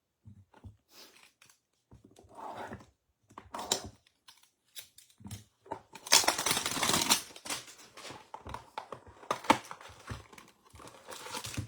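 A Topps Heritage baseball-card hanger box being torn open, with packaging crinkling and short rustles throughout and a longer, louder tear about six seconds in.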